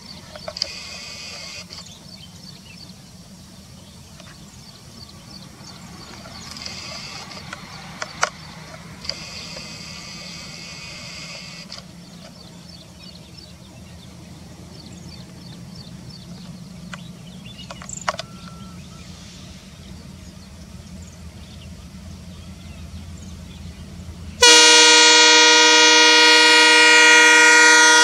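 Indian Railways diesel locomotive approaching with a low steady rumble, then sounding its horn in one long, loud blast of nearly four seconds near the end. Three short stretches of high buzzing and a few sharp clicks come in the first twelve seconds.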